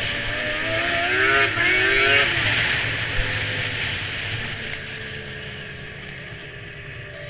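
2002 Yamaha SX Viper snowmobile's three-cylinder two-stroke engine under way, revving up about a second in and peaking near two seconds, then easing off so that the engine note drops and slowly fades.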